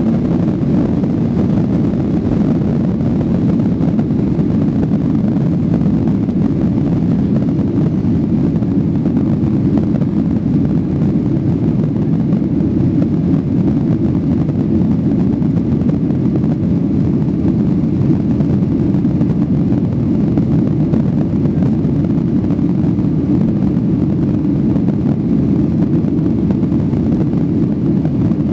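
Cabin noise of a Boeing 737-800 at takeoff thrust, heard from a window seat over the wing: its CFM56-7B turbofans and the airflow make a steady, low, even rush as the jet leaves the runway and climbs out.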